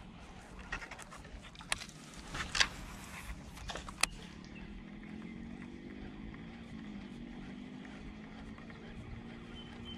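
Baitcasting rod and reel in use from a small boat: a few sharp clicks and knocks from the reel and the lure landing on the water in the first few seconds. After that, a steady low hum of a motor.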